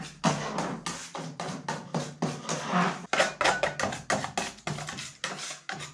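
Quick, irregular taps and scrapes of a hand tool against a plastic paint roller tray as colorant is mixed into lacquer in it.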